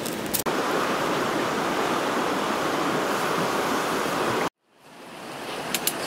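Crickets frying in oil in a wok, sizzling steadily. The sound cuts off suddenly about four and a half seconds in and fades back up.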